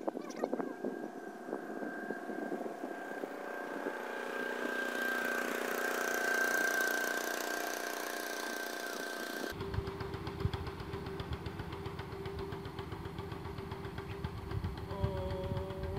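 A small boat's engine running out on the lake: a steady whine at first, then about nine seconds in the sound changes suddenly to a lower, fast-pulsing engine note.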